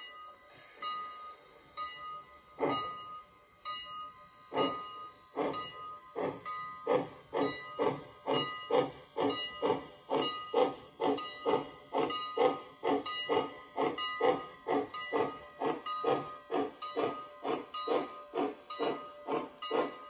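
HO-scale Lackawanna steam locomotive's sound system playing exhaust chuffs as the engine pulls away: the first chuffs come a couple of seconds apart, then quicken steadily to about three a second.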